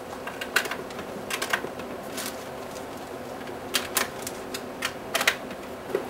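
Scattered clicks and knocks from handling an Akai MPC2500 sampler's casing as its power cord is plugged back in, some strokes in quick pairs.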